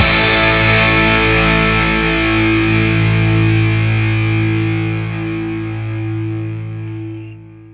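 Rock song's final chord on distorted electric guitar, struck once and left to ring, slowly fading out.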